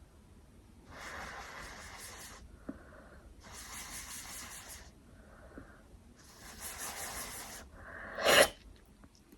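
A woman breathing heavily through her nose, three long hissy breaths, as a twisted paper tissue tickles inside her nostril, then one short, sharp sneeze a little after eight seconds in, the loudest sound.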